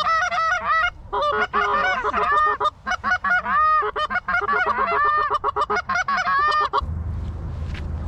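Rapid, loud Canada goose honks and clucks in quick runs with short breaks, stopping abruptly about seven seconds in.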